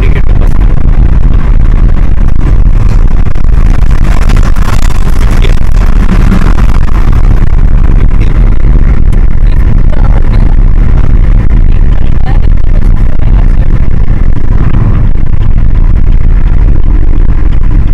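Suzuki car driving on a highway, heard from inside the cabin: a loud, steady rumble of road and engine noise.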